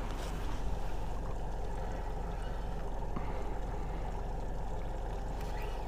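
Steady low background noise of a small fishing boat sitting on calm water, with faint water sounds against the hull.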